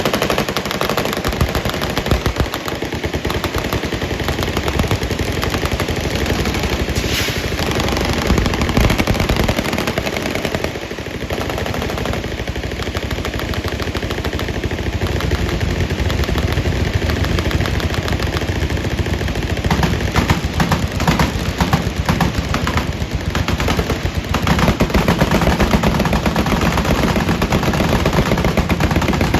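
Many machine guns firing at once in long overlapping bursts, a dense unbroken rattle of shots that starts abruptly.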